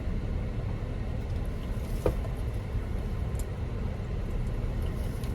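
Steady low vehicle rumble, with one short knock about two seconds in.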